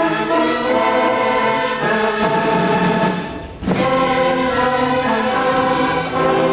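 Background music: a choir singing held chords, with a short break about three and a half seconds in.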